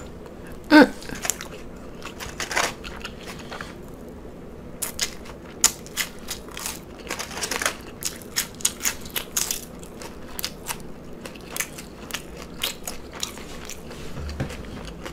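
Loud, close-miked chewing of a lettuce-wrapped cheeseburger slider: crisp, crackly mouth sounds that come thick and irregular, several a second, from about five seconds in.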